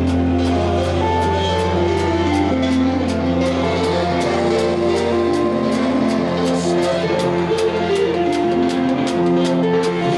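Live band playing loudly: a drum kit keeping a steady beat of about four hits a second under bass and guitar.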